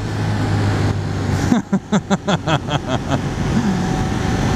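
Ducati Monster 1200R's V-twin engine running steadily under acceleration. About a second and a half in, the steady note breaks into a quick run of about eight short bursts, roughly five a second, then settles back to a steady tone.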